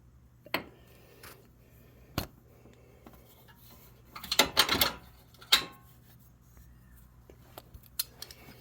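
Metal hand tools clinking and knocking: a few separate sharp clanks, then a quick rattling flurry of metal-on-metal clatter about four and a half seconds in, as wrenches are handled and set down.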